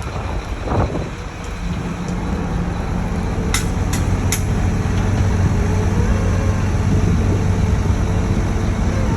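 Heavy engine of concrete-pouring machinery running steadily with a low hum, with three short sharp clicks about halfway through.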